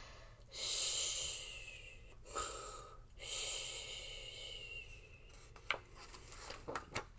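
A woman's two long, drawn-out breaths, about two seconds each and each trailing off in a faint falling whistle, acting out a dragon asleep and snoring. Near the end a few soft clicks of a picture-book page being handled.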